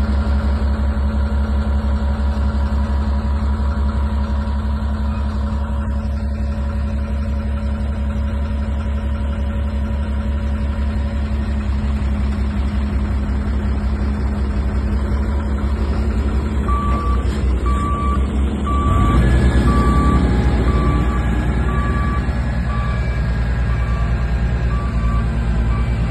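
L&T 9020 SX wheel loader's diesel engine idling steadily with a pulsing low hum. About two thirds of the way through a warning beeper starts, about one and a half beeps a second, and soon after the engine revs up as the loader moves off.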